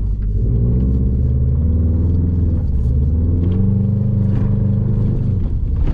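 Subaru WRX STI's turbocharged flat-four engine revving hard as the car is powered sideways through a snow-covered roundabout with the diff locked. The revs climb, dip about halfway through, climb again and drop near the end.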